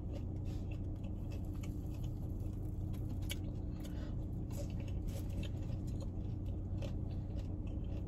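Close-up chewing and small crackles of someone eating crispy-skinned smokehouse chicken and tearing the meat apart with their fingers, over a steady low hum.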